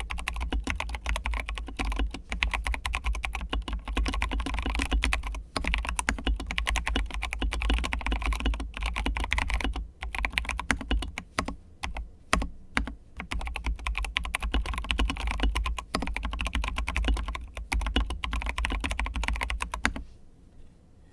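Mechanical keyboard typing: a PLA75 with lightly lubed, spring-swapped T1 tactile switches and OSA-profile keycaps, giving a fast, steady stream of keystrokes with a few brief pauses. The typing stops about a second before the end.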